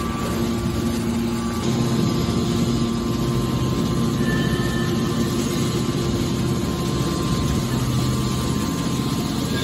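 Hydraulic baler's electric motor and hydraulic pump running with a steady hum, slightly louder from about a second and a half in.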